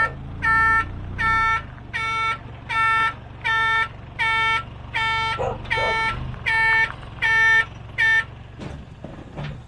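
A tip truck's reversing beeper sounding a steady repeated beep, about every three-quarters of a second, over the low running of the truck's engine as it backs up. The beeping stops about eight seconds in.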